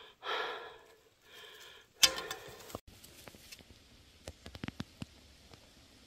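A person's breathy sounds, three short ones in the first three seconds, the last the loudest; then faint scattered clicks and rustles.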